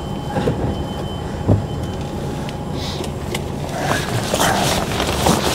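Mercedes-Benz Actros lorry's diesel engine idling steadily, heard from inside the cab with the window down. A single knock sounds about a second and a half in, and a brief rush of noise comes near the end.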